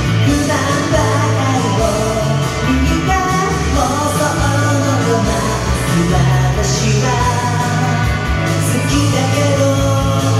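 A man singing in Japanese over a karaoke backing track of an upbeat pop-rock song, with the key lowered four steps.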